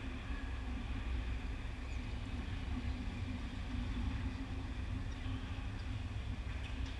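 Ice hockey rink ambience: a steady low rumble and hum with a faint even hiss above it, and a faint tick near the end.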